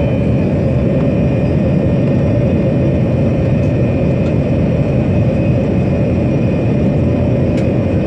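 Steady cabin noise of a Boeing 787 Dreamliner in flight, heard from inside the cabin beside the engine: a deep, even rush of jet engine and airflow with a thin steady high tone over it.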